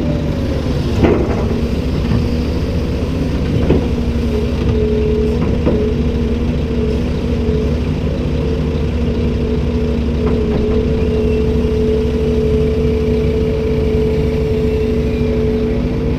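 Komatsu PC290-10 excavator's diesel engine running steadily, with a few sharp knocks in the first six seconds, the loudest about a second in. A steady higher tone joins the engine after about four seconds.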